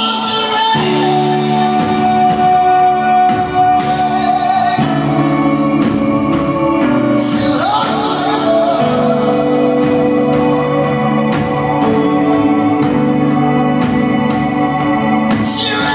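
Live band music: a male singer holding long, wavering notes over sustained electric guitar and keyboard chords.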